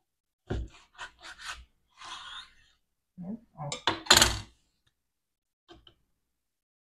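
Chef's knife sawing through a slab of sun-dried beef on a wooden cutting board, several short scraping strokes with the blade knocking the board, the loudest knock about four seconds in. After that only a faint click.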